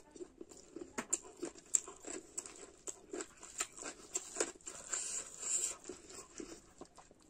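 Close chewing and wet mouth smacks, with fingers squishing through rice and curry, in short irregular clicks several times a second.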